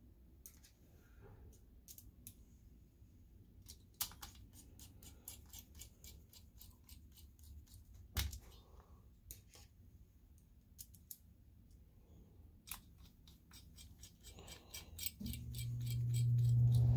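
Hand screwdriver turning the screws of a projector's aluminium heatsink back in: a run of small metal clicks and ticks, with two sharper knocks about four and eight seconds in. A low steady hum starts near the end.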